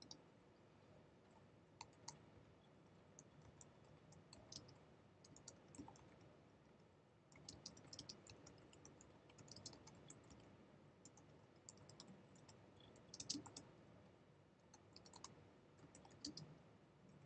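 Faint typing on a computer keyboard: short, sharp key clicks in irregular quick runs, with the loudest cluster about two-thirds of the way through.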